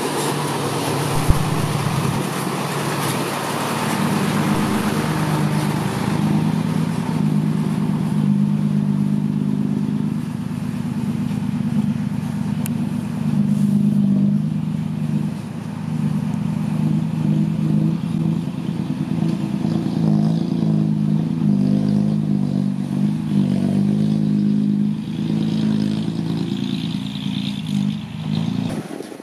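Six-wheel dump truck's diesel engine running under load while hauling soil, a steady deep drone at a nearly constant pitch. One sharp click about a second in.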